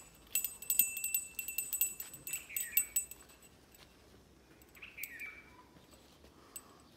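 Small metal bells on a goat's neck decoration jingling in quick shaken runs for the first three seconds while the decoration is handled and tied on. A bird gives a short falling chirp, then again twice more.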